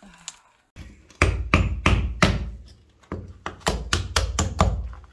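Hard knocks on a brick, about a dozen in two quick runs, as a leftover brick is knocked and fitted into a hole in the fireplace.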